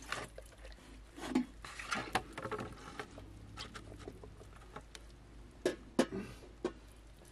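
Wet squelching, smacking and clicking of a raw whole chicken being cleaned by hand in a plastic basin, a hand working inside the body cavity. The sharp wet smacks come irregularly, the loudest about six seconds in.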